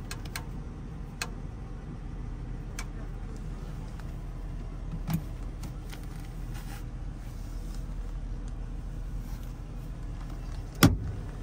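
Small clicks and soft handling knocks as a truck cab's built-in fridge is worked, its control pressed and its lid raised, over a steady low hum. One sharp knock comes near the end.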